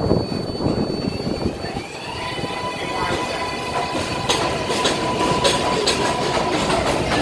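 R142A New York City subway train pulling out of the station: its traction motors give a whine that rises in pitch as the train picks up speed, over the rumble of the wheels, with repeated clicks from the wheels over the rail joints in the second half.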